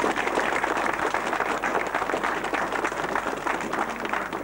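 Crowd applauding, a dense run of many hands clapping.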